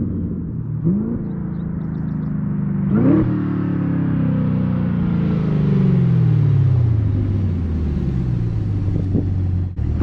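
Camaro ZL1's supercharged 6.2-litre V8 running through an AWE Track Edition catback with no mufflers or resonators. It gives two quick revs, the second and louder about three seconds in, then its note falls steadily over the next several seconds.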